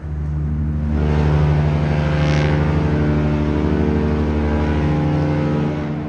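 Cruise ship horn sounding one long, deep, steady blast of about six seconds, growing fuller about a second in.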